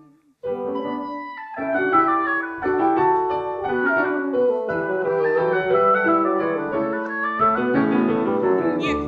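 Piano, oboe and bassoon playing an instrumental interlude of a waltz song. The music starts after a short silence about half a second in.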